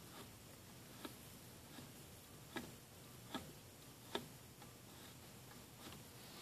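A few faint clicks and taps, irregularly spaced, from a rusty old speedometer's metal case being handled and turned in the hand; otherwise near silence.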